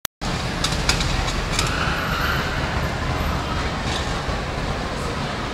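Steady street traffic noise: a low rumble and hiss, with a few faint clicks in the first two seconds.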